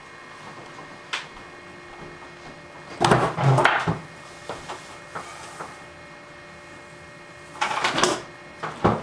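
Hands slapping down onto paper cards on a tabletop: a quick flurry of slaps and scuffs about three seconds in, then a few light taps and card slides, and another flurry of grabbing and slapping near the end.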